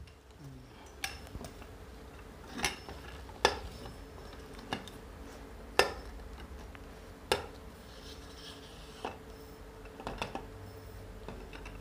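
Metal tripod microphone stand being handled and adjusted: its tubes, clamps and legs clink and knock against each other and the tile floor in a scattering of sharp, separate clicks, the loudest about three and a half and six seconds in.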